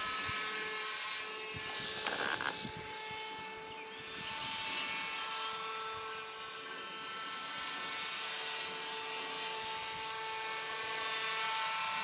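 Electric motor and propeller of a radio-controlled paramotor running with a steady whine whose pitch shifts slightly. A short burst of noise comes about two seconds in.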